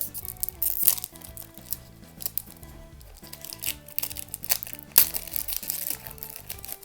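Foil booster pack wrapper crinkling and tearing open in two loud bursts, about a second in and again around five seconds in, over steady background music.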